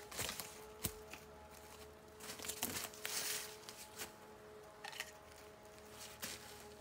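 Footsteps crunching on snow and dry leaves and rustling of handled cord and gear, with a few sharp clicks near the start.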